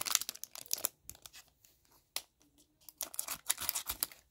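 A trading-card pack's foil wrapper being torn open and handled, crinkling and tearing in short irregular rustles, with a sharp click a little after two seconds in.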